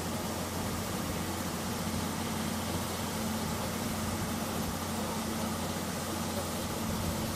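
Steam locomotive D51 498 standing with steam up: a steady hiss of steam with a low, even hum underneath.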